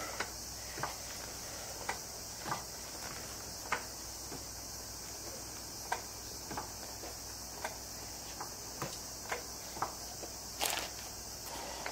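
Hydraulic floor jack being pumped to raise a car, with light clicks and knocks about once a second from the handle strokes, over a steady high hiss.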